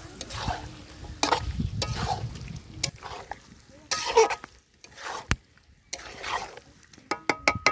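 Chicken being stirred and scraped in a pot as it is stir-fried in the spice masala, in about half a dozen separate scraping strokes. A quick cluster of sharp clicks comes near the end.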